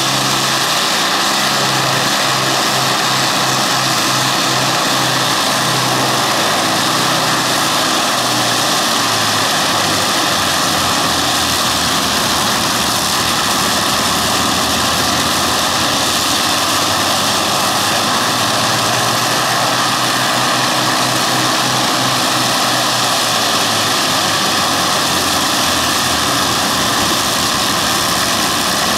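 Avro Lancaster's four Merlin V12 engines running together during a ground run-up, propellers turning. It is a loud, steady drone with a pulsing beat in the low end, where the engines run slightly out of step.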